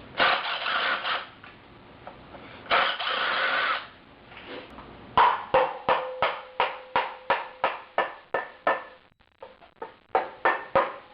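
Tool work on a rotary engine teardown: two short bursts of a power tool, each about a second long, then a steady run of sharp metallic knocks, about three a second, each ringing briefly.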